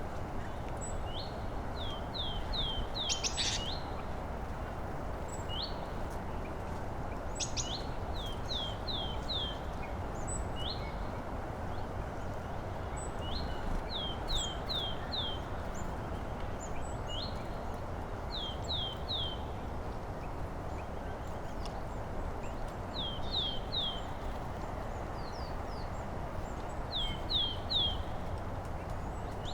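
A songbird sings short phrases of three to five quick rising notes, repeated every few seconds, with a few faint high chips from other birds. A steady low rush of background noise runs underneath.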